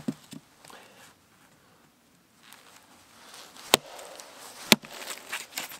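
Sharp chopping blows on wood as a piece of firewood is split down: one knock right at the start, then two loud strikes about a second apart in the middle.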